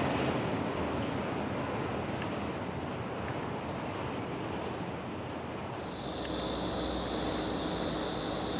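Rumble of a train that has just passed, fading as it goes away. About six seconds in it switches abruptly to a steady high insect buzz over a low distant rumble.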